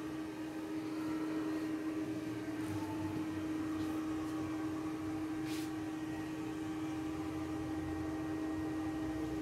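Steady machine hum with one strong constant low tone and fainter tones above it, unchanging throughout; a few faint clicks come and go.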